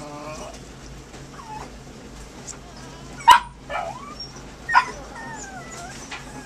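Two puppies play-fighting, giving high squeaky whines and a few sharp yips; the loudest yip comes about three seconds in, another near five seconds.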